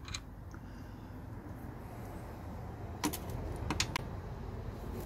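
A few sharp plastic clicks and knocks as a car's engine-bay plastic trim panel and its clips are worked loose and lifted by hand. There is one click at the start and a handful about three to four seconds in, over a low steady rumble.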